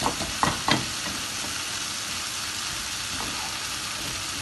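Mushrooms, bell pepper and onion frying in a pan, a steady sizzle. In the first second, three soft pats as hands press pizza dough into a hot tray.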